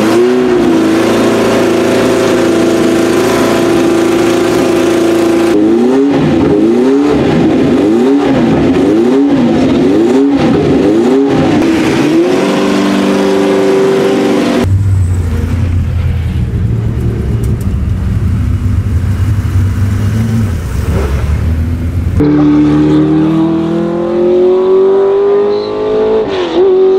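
Porsche 908/3's flat-eight racing engine held at a steady raised idle, then blipped about once a second, eight times. Then a Porsche 911 racing car's flat-six idling with a lower, rougher note, and finally an engine accelerating with one long, steadily rising pitch as a race car drives along the track.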